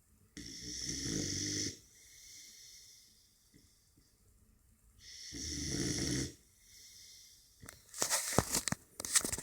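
American bulldog puppy snoring: two long rasping snores about four seconds apart, with faint breaths between. Near the end comes a quick run of sharp clicks and rubbing noises, louder than the snores.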